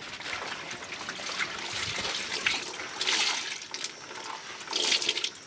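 Water splashing and pouring during washing by hand, in uneven bursts, loudest about three seconds in and again near the end.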